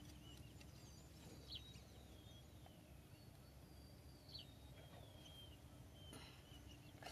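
Near silence, with faint high bird chirps now and then.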